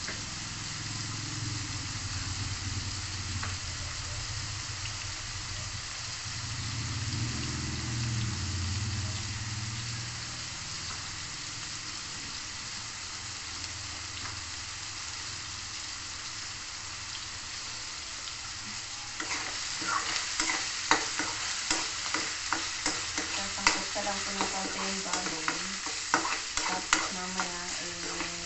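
Diced meat sizzling steadily as it fries in a wok. About two-thirds of the way through, a utensil starts stirring it, with irregular scrapes and clicks against the metal pan.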